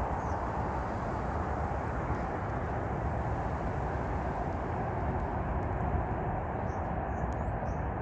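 A steady rushing noise with no rhythm, and a few faint, short, high calls of starlings about six to seven seconds in.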